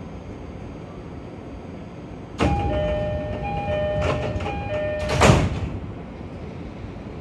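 E231 series train's door chime sounding three times as the sliding passenger doors close, with a loud thump as the doors shut about five seconds in. Under it is the low hum of the stationary train.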